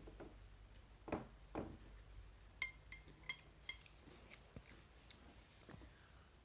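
Cutlery clinking against a plate several times in quick succession while eating, after a couple of soft knocks.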